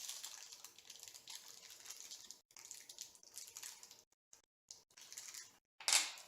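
Light rustling and small clicks of hardware being handled while hunting for the right screws in a 3D printer kit, with a louder rustle just before the end.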